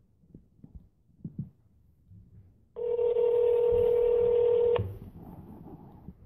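Telephone ringback tone of an outgoing call as it rings: one steady two-second ring that cuts off with a click, after a few light taps on the phone.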